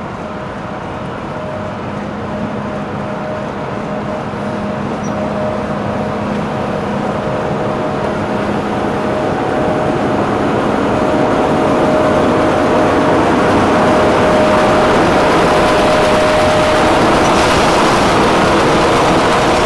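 Class 45 'Peak' diesel-electric locomotive's Sulzer twelve-cylinder engine running as the locomotive moves slowly past, growing steadily louder as its engine room comes alongside, with a steady whine over the engine note that fades out near the end.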